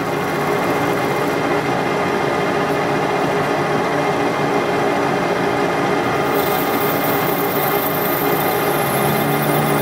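Metal lathe running steadily with a plastic bushing spinning on a gage-pin mandrel. About six seconds in, a high hiss joins as the parting tool begins cutting into the plastic.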